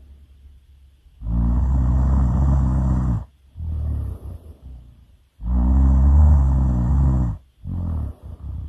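Loud snoring in a slow, regular cycle: two long snores of about two seconds each, each followed by a shorter, quieter breath out.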